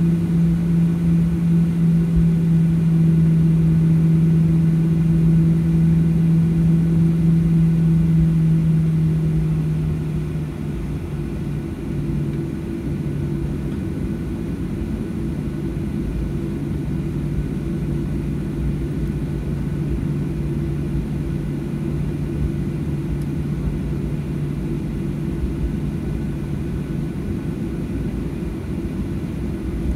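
Boeing 737-800 jet engines (CFM56-7B) running with a steady drone and low rumble. About ten seconds in, the sound drops a little in level and pitch and then holds steady.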